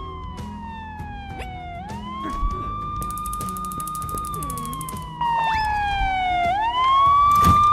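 Ambulance siren wailing slowly: a held high tone that slides down and then swoops quickly back up, twice, growing louder about five seconds in, over soft background music.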